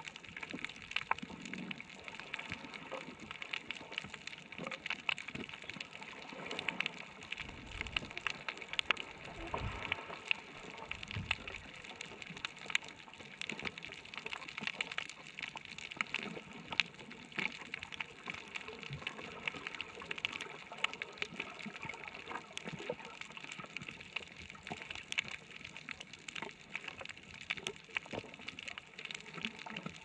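Underwater coral reef ambience: a steady watery hiss full of dense crackling clicks, with a few brief low rumbles near the middle.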